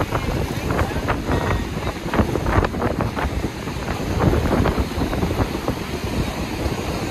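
Strong wind buffeting the microphone in irregular gusts, over rough surf breaking and washing against a rock jetty.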